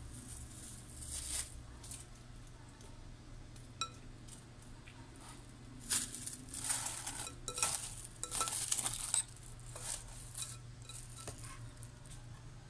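Plastic cling wrap being pulled and stretched over a glass bowl, crinkling in a run of rustles about six to nine seconds in. A few light clinks of kitchen handling come before it.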